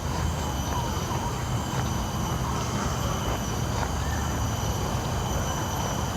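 Steady low rumble of road traffic with a few faint, steady high-pitched tones above it.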